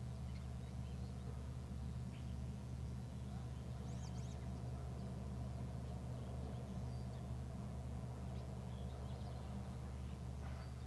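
A steady low hum with a few faint, brief high chirps over it.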